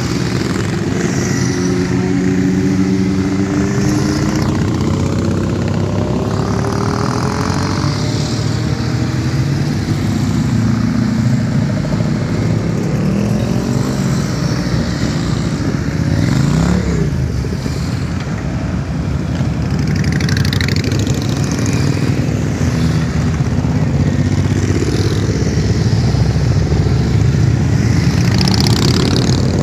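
Many motorcycle engines running at once as bikes ride slowly past one after another, their engine notes overlapping and rising and falling with the throttle. One bike revs up and back down about halfway through.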